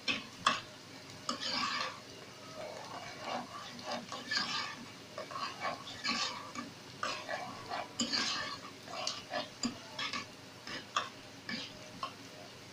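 Metal spoon stirring and scraping chopped onion through hot oil in a nonstick pot, in irregular strokes with sharp clicks of the spoon against the pot, over a light sizzle of the onions sautéing.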